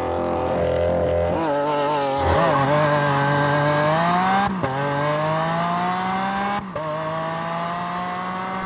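Lamborghini Aventador S's naturally aspirated V12 accelerating hard, its pitch climbing steadily with the revs. Twice the pitch drops sharply at an upshift, then climbs again.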